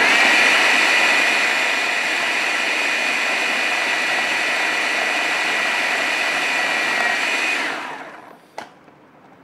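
Electric food chopper running at steady speed with a high motor whine while blending a thick mix of cooked lentils and chicken korma. It switches off after about seven and a half seconds and spins down, followed by a single small click.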